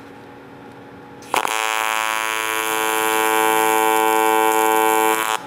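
AC TIG welding arc on aluminum: a steady, harsh buzz that starts abruptly about a second in. It grows a little louder as the foot pedal is eased on, then cuts off suddenly near the end as the tack is finished.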